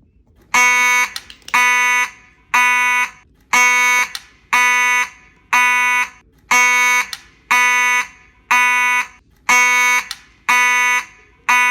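Fire alarm horn sounding a slow march-time code: about a dozen evenly spaced buzzy blasts, roughly one a second, each just over half a second long. It is pretty loud.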